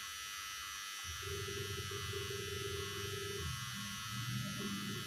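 A quiet pause with only a faint steady hum and hiss in the background.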